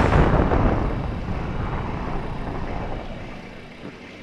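A low, noisy rumble with no clear tone, fading away steadily over about three seconds.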